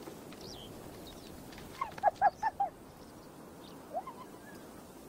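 Spotted hyena giggling: a quick run of about five short, high-pitched yelping notes about two seconds in, then a single rising note near the end.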